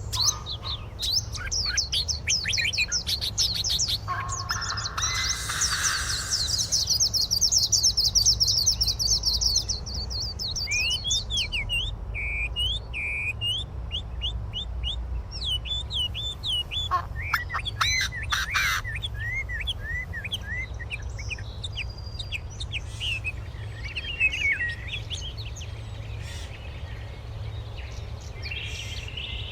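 Wild songbirds calling: rapid high trills for about the first ten seconds, then scattered shorter chirps and whistles, over a steady low background noise.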